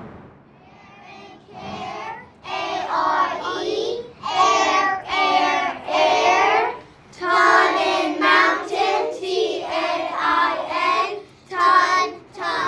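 Children singing a song together, phrase after phrase of held, sung notes, starting about a second in.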